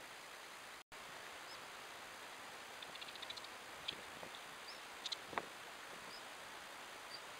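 Steady camera-trap microphone hiss that drops out for an instant about a second in, then faint rustling and a scatter of sharp clicks in the grass as two Eurasian otters move close to the camera, with a few very short, high chirps.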